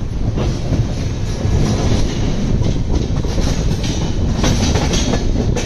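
Double-decker express train running on the rails, heard at an open coach door: a steady rumble of wheels on track, with a few sharp clicks near the end.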